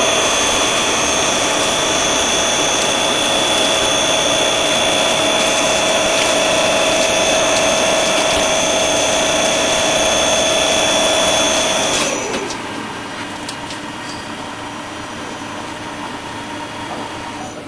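Core drill grinding machine running with a loud, steady whine. About twelve seconds in, the whine stops and winds down, leaving a quieter running noise.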